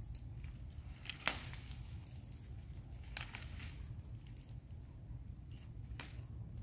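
Tender Smilax vine shoots snapped off by hand: three sharp snaps, the first the loudest, with light rustling of the vines between them, over a steady low rumble.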